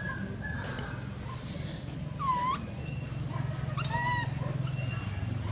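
Baby long-tailed macaque crying out in short high squeals, once about two seconds in and again near four seconds, while an adult holds it down. A steady high-pitched whine runs underneath.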